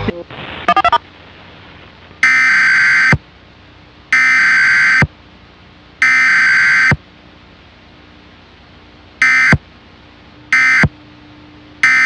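Emergency Alert System SAME digital header: three buzzy bursts of data tones, each just under a second long and about a second apart. About nine seconds in come three shorter bursts of the same tones, the end-of-message code.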